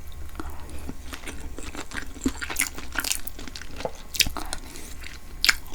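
Close-miked eating sounds: chewy rice-cake tteokbokki and beef intestines being chewed, with irregular wet smacks and clicks of the mouth, a sharper click near the end.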